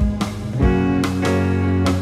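Background music: a guitar-led track with a bass line and a steady drum beat.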